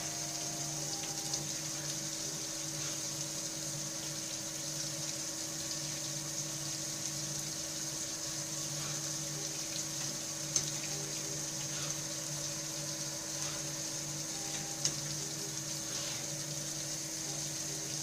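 Spinner TC 32 MD CNC lathe running with a steady hum and a high whine, its coolant pump going with a sound of liquid. A couple of short sharp clicks come through, one about ten seconds in and one near fifteen seconds.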